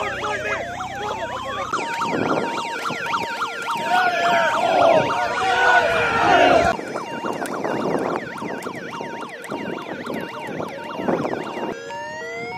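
Electronic sirens sounding in overlapping patterns: a slow rising wail, a fast warbling yelp and a steady pulsed beep. The mix changes abruptly about two seconds in and again about halfway through.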